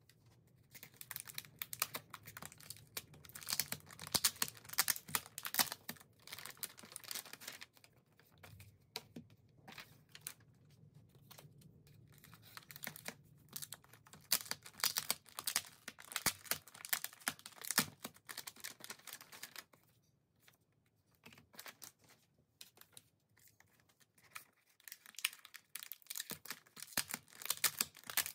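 Crinkly plastic chip-bag-style album pouch being handled and torn open, with bursts of crackling and clicking broken by short quiet pauses.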